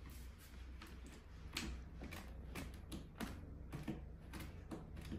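A dozen or so short, irregular scratches and taps on the carpet-covered ramp of a wooden cat tower, over a steady low hum.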